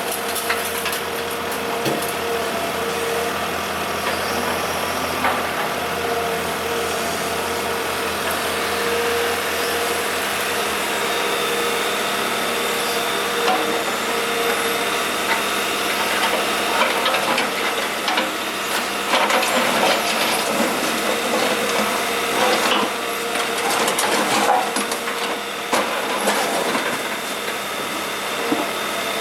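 Kobelco SK125W wheeled excavator's diesel engine running steadily while broken asphalt scrapes and clatters, with more clatter in the second half.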